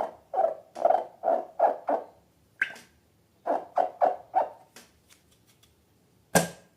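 Slime being squeezed and worked by hand, giving a run of short wet squishes about two or three a second, with a pause in the middle. Near the end comes a single sharp click.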